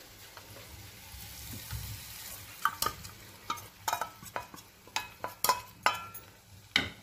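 Spoon stirring cornflour slurry in a steel bowl, and the slurry pouring into a pan of frying vegetables with a faint sizzle. From about three seconds in, a quick run of sharp metallic clinks as the spoon scrapes and taps the bowl and pan.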